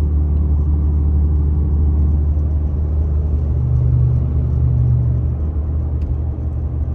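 Steady low rumble heard inside the cab of a Ram 2500 with the Cummins turbo-diesel inline-six, cruising at highway speed while towing a trailer. The engine itself is very quiet. A low hum rises in about three and a half seconds in and fades under two seconds later.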